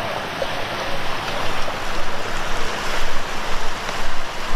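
Surf washing onto a sandy beach, a steady rush of breaking waves that swells louder in the second half.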